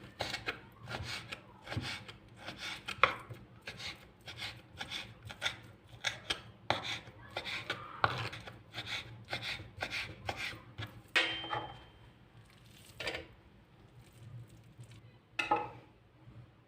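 Knife chopping on a cutting board, steady strokes about two or three a second, which stop about two-thirds of the way through. A few separate knocks follow, one with a short ringing clink.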